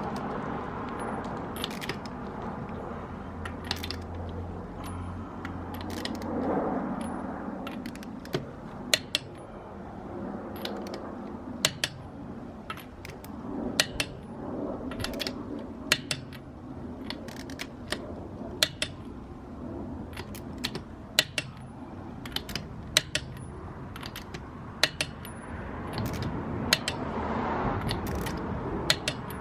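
Click-type torque wrench clicking again and again as lug nuts are tightened to spec, with sharp metallic clicks coming at irregular intervals, often two close together.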